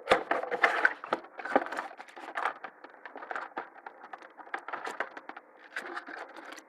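Cardboard phone box and its packaging handled and rummaged through: an irregular run of small clicks, scrapes and crackly rustling as the SIM ejector tool is sought.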